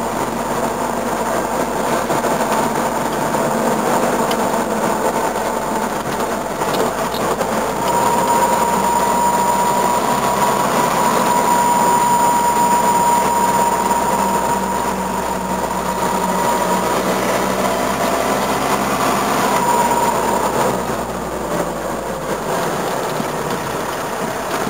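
Toyota BJ40 Land Cruiser's four-cylinder diesel engine and drivetrain heard from inside the cab while driving, a steady drone. A high, steady whine joins about a third of the way in and fades away a few seconds before the end.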